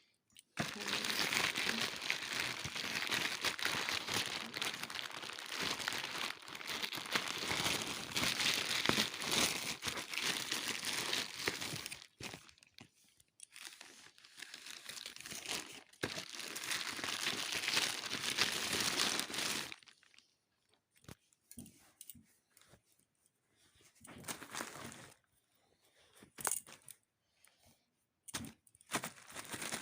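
Parcel packaging being cut open with a blade and torn, with continuous crinkling and tearing for about twelve seconds, then patchier bouts, then scattered short crackles as the wrapping is pulled apart.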